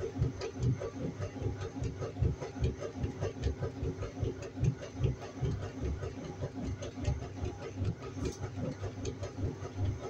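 Washing machine running: a continuous run of quick, uneven low thumps with light ticks over them.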